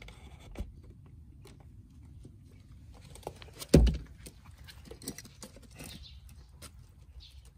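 Quails' feet pattering and pecking with light ticks on a wooden board and straw bedding as the birds leave their wooden house, with one loud knock a little under four seconds in.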